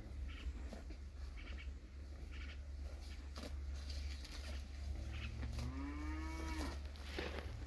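A single cow moo about six seconds in, lasting about a second and rising then falling in pitch, over a steady low hum.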